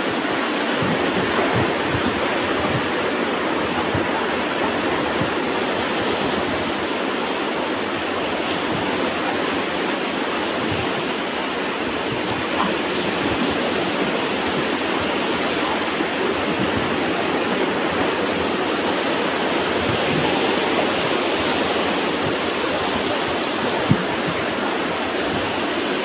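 Ocean surf washing over a rocky lava shoreline: a steady, continuous rush of water, with some wind on the microphone.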